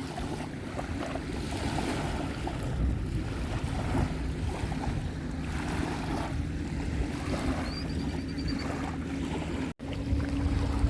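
Beach ambience: waves washing and wind buffeting the microphone in a steady rush, under a low steady hum. A brief rapid high chirp sounds about eight seconds in, and the sound cuts out for an instant near the end.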